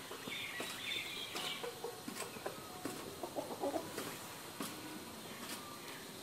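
Birds calling: a run of high chirps in the first second and a half, and short low clucking notes around a second and a half in and again from about three to four seconds in.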